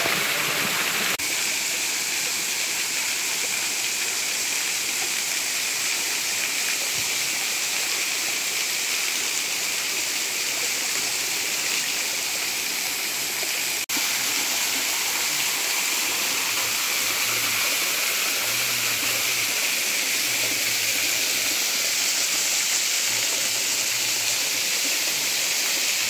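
Waterfall: a steady rush of falling water, with a short break in the sound about halfway through.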